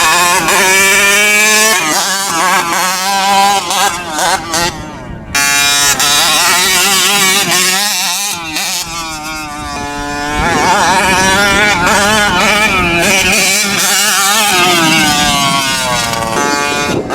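Gas engine of a large-scale RC monster truck running loud under hard throttle, its pitch rising and falling again and again as it revs up and eases off, dropping lower around the middle before climbing back up.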